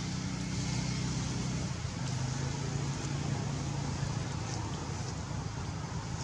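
Steady low engine hum that shifts pitch about two seconds in, over a constant hiss.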